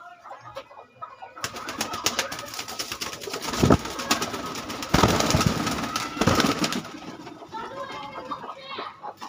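A flock of Rajasthani bajra pigeons cooing in a small loft. From about a second and a half in, a loud rustling, clattering noise covers the calls for about five seconds. The cooing returns clearly over the last couple of seconds.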